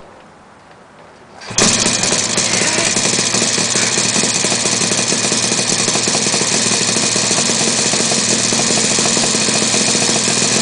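Yamaha RD400 two-stroke parallel-twin motorcycle engine catching on a kick start about a second and a half in, then running steadily and loudly.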